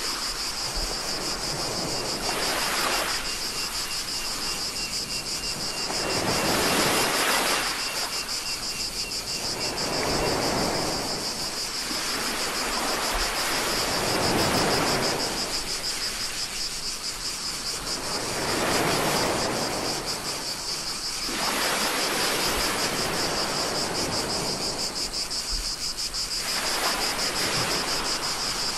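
Small waves washing in and drawing back, swelling every four seconds or so, under a steady, shrill chorus of cicadas.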